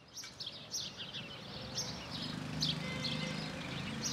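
Small birds chirping outdoors, many short high chirps repeating several times a second, with a low steady rumble coming in about halfway.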